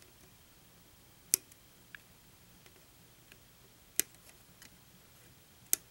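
Hobby nippers snipping a model kit part off its plastic runner: three sharp clicks, about a second and a half in, at about four seconds and near the end, with faint ticks of the plastic being handled between.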